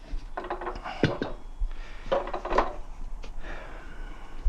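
Handling noise from manual tire-changing work: irregular knocks, clicks and rubbing as the tools and the freshly mounted motorcycle tire and wheel are handled, with the sharpest knock about a second in.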